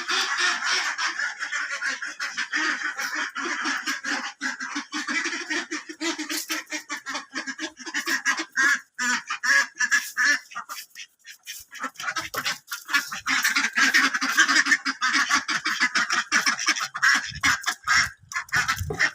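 A flock of domestic ducks quacking and chattering in a dense, continuous stream of rapid calls, easing off briefly about halfway and then picking up again.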